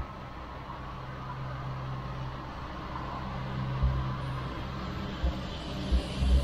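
Chairlift machinery running: a steady low mechanical hum under a rushing haze as the chair rolls toward the lower station, with a few short dull low thumps in the second half.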